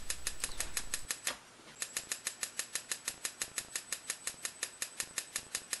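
Stun gun's 100,000-volt sparks snapping across the electrodes inside an experimental igniter chamber, a rapid even train of sharp cracks at about eight a second with a short break about a second in. A faint high-pitched whine runs beneath the snaps.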